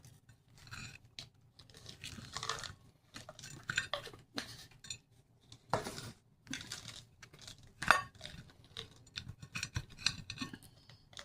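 A knife cutting through a crisp-crusted pone of cornbread on a plate: irregular scrapes and crunches, with the blade clinking against the plate. The sharpest clink comes about eight seconds in.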